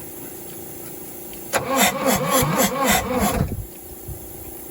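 1963 Case 310F bulldozer's diesel engine being turned over by its starter for about two seconds, chugging at about four compression pulses a second, then stopping without firing. It is being cranked with the injector feed lines cracked open to prime fuel through to the injectors.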